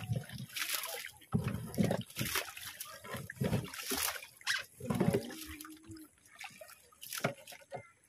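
Sea water splashing and dripping in irregular bursts as a gill net heavy with small fish is hauled out of the water over the side of a boat, with dull thuds from the wet net and the hull.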